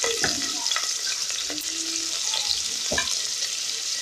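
Smoked fish and onions sizzling in hot oil in a metal pot, stirred with a wooden spatula that knocks and scrapes against the pot a couple of times.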